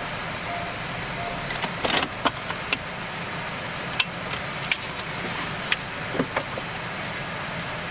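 Steady road and engine noise of a Honda Vezel as it is driven, heard from inside the cabin. A short beep repeats every 0.7 s or so and stops about a second and a half in. After that comes a scattering of sharp clicks and rattles.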